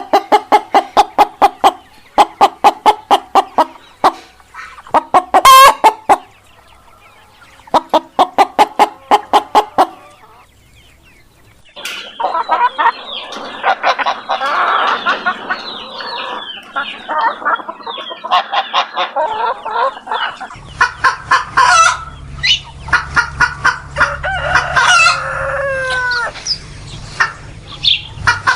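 Chickens calling: first several bursts of rapid, evenly pulsed cackling, then after a short lull a whole flock of hens clucking and squawking over one another. A low steady hum joins in behind the flock about twenty seconds in.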